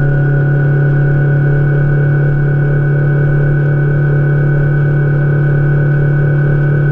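Fishing boat's outboard motor running at a steady cruising speed: a constant low drone with a steady high whine above it.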